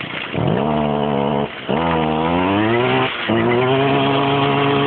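Stihl FS 55 brushcutter's two-stroke engine revved on the throttle three times with short drops between, the pitch climbing during the second rev and holding high in the third. The engine has just started and the throttle is blipped to let the fast start setting drop so the running evens out.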